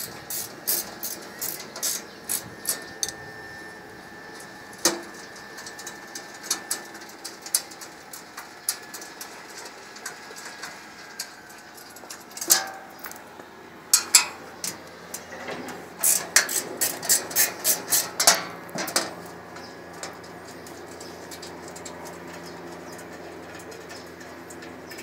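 Sharp metallic clicks and taps of a combination wrench working bolts on a sheet-metal cover panel. They come in quick runs of about three a second, with a few louder single knocks.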